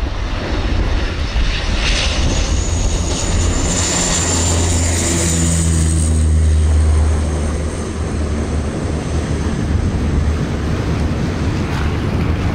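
Twin turboprop engines of a Canadair CL-415 water bomber running at power as it skims the water to scoop a load. It is a deep hum with a high turbine whine that swells a couple of seconds in, peaks around six to seven seconds, then eases as the aircraft moves off.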